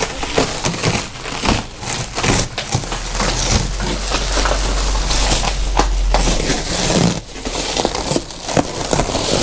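Plastic stretch-wrap film crackling and crinkling as it is cut with a knife and pulled off a cardboard-crated machine. A steady low rumble runs under it for a few seconds in the middle.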